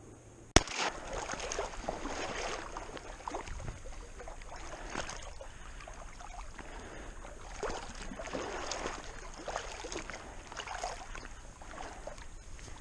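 A single shotgun shot about half a second in, then irregular sloshing and swishing of water as someone wades through shallow marsh water.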